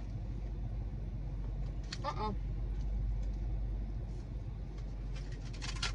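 Steady low hum of a car idling, heard inside the cabin. There is a brief voiced murmur about two seconds in, and a few short crunching, crinkling sounds near the end as a fried pie in a paper sleeve is bitten.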